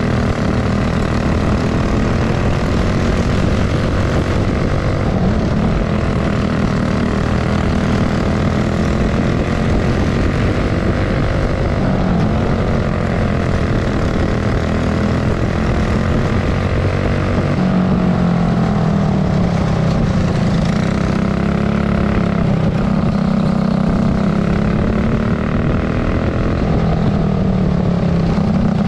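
Racing go-kart engine heard from on board at race pace, its pitch falling and rising every few seconds as it slows into the corners and accelerates out.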